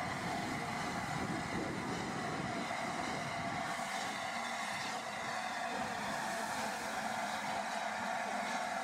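LNER A4 three-cylinder Pacific steam locomotive moving off slowly, exhausting steam from its chimney, heard as a steady hiss and rumble without distinct beats.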